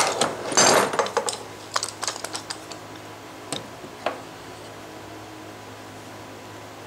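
Wooden handscrew clamp being fitted onto a plywood jig block: a quick clatter of wood-on-wood knocks and clicks with a brief scrape near the start, then two single sharp taps a little later.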